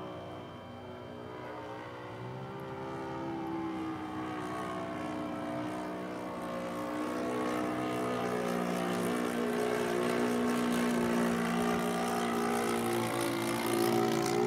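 The Enya 120 glow engine and propeller of a Carl Goldberg Ultimate 10-300 model biplane in flight: a steady engine drone whose pitch wavers slightly, growing louder and loudest near the end.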